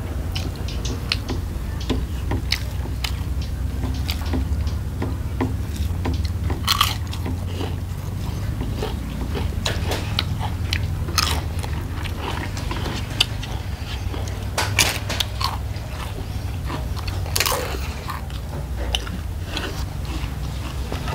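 Close-up eating sounds: a person chewing and biting into crisp food, with many sharp, irregular crunches. A steady low hum runs underneath.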